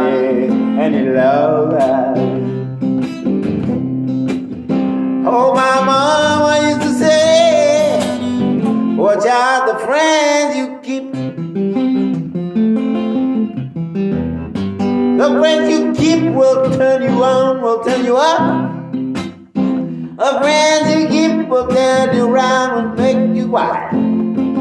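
Acoustic guitar strummed and picked, with a man's voice singing over it in long drawn-out phrases.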